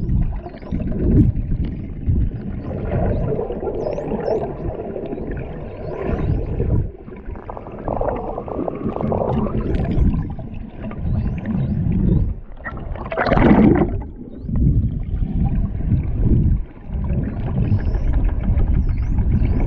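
Underwater water noise: low rushing and sloshing swells against the phone, with one louder gush about two-thirds of the way through. Above it, faint, short, rising and falling whistles from the dolphins come again and again.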